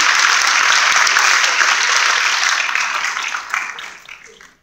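Audience applauding steadily, then dying away over the last second or so.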